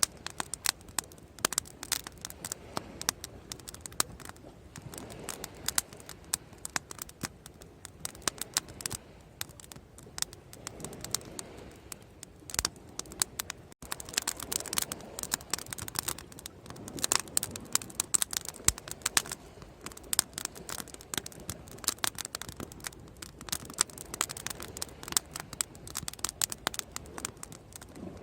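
Wood fire crackling: a dense, irregular run of sharp pops and snaps over a low hiss, with a momentary break about halfway through.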